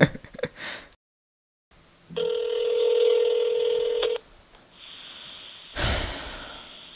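Telephone ringback tone heard down a phone line: one steady ring of about two seconds while the call is ringing out unanswered, then line hiss. A sudden noise that fades out comes near the end.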